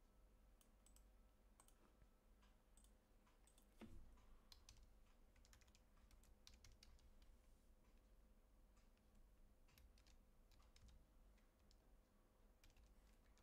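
Faint computer keyboard typing and mouse clicks, scattered and irregular, with one louder soft thump about four seconds in.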